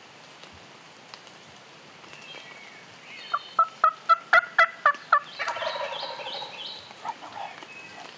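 About eight sharp, loud hen-turkey cutts on a diaphragm mouth call, about four a second, answered at once by a wild turkey gobbler's gobble, a rattling, falling call lasting about a second and a half.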